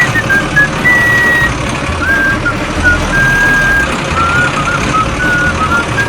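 Small motors of miniature RC construction vehicles running with a dense, continuous grinding noise. Short high whistling tones at changing pitches sound over it.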